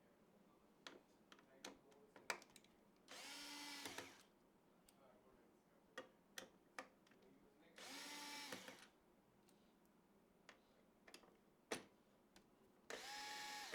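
Small electric screwdriver run in three short bursts of about a second each, its pitch rising as the motor spins up and then holding, driving screws during PC assembly. Light clicks and small knocks of parts being handled fall between the bursts.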